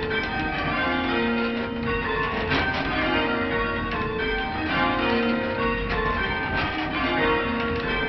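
A ring of church bells being change rung by rope: a steady, unbroken succession of bell strokes, each ringing on over the next. Heard from the ringing chamber beneath the bells.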